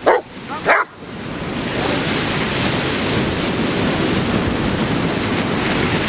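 A dog barks twice in quick succession, then a steady rush of ocean surf breaking on the shore.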